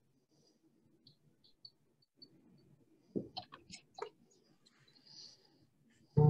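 Scattered faint clicks over a video call's open microphone, then a short loud pitched sound near the end.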